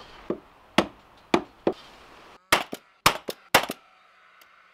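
Paslode cordless framing nailer firing, with four sharp shots in quick succession driving nails into timber blocks, after a few lighter knocks in the first couple of seconds.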